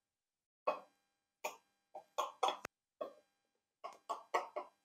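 Knife blade drawn through raw semolina batter in a glass dish, cutting it into squares: about ten short, quiet scraping strokes, with one sharp click of the blade on the glass about two and a half seconds in.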